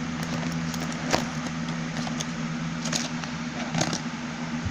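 Small metal screwdriver bits clicking and rattling a few times as they are handled, over a steady low machine hum.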